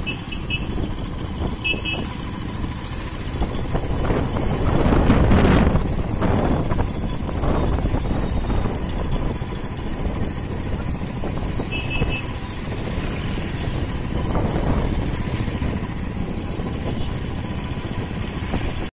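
Road traffic noise heard from a moving vehicle: engines and a dense low rumble, with a louder swell of a vehicle going by about five and a half seconds in. A few brief high chirps sound near the start and about twelve seconds in.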